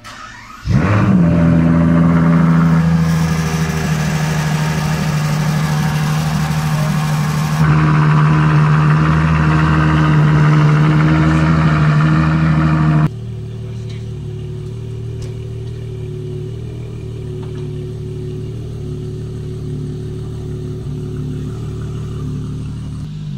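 Ferrari Monza SP2's 6.5-litre V12 cold-starting: it catches under a second in with a rising flare, then runs at a high, steady cold-start idle that steps up a little about halfway through. Around thirteen seconds in the sound drops suddenly to a quieter, lower-pitched steady idle.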